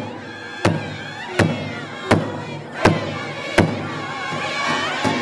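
Powwow drum group singing at a big drum: struck beats about three-quarters of a second apart under loud chorus singing by men, with women's voices joining in an octave above. The beat pauses briefly near the end while the singing carries on.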